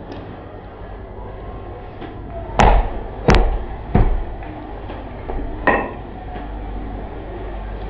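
Heavy knocks on a wooden butcher's chopping block as a pork rib section is butchered. There are three sharp blows, each about two thirds of a second apart, then a weaker one a little under two seconds later.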